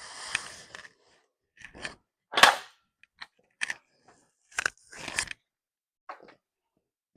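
Handling noise on a workbench: a brief rustle, then a series of sharp clicks and knocks of objects being picked up and set down. The loudest knock comes about two and a half seconds in.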